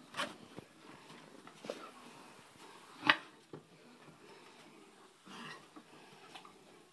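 Scattered light clicks and scuffs of a Great Dane puppy moving about on wooden decking, with one sharp louder click about three seconds in.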